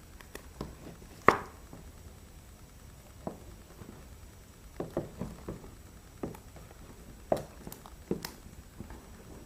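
Phone box being opened and handled: scattered light knocks and taps of cardboard and packaging, the sharpest about a second in.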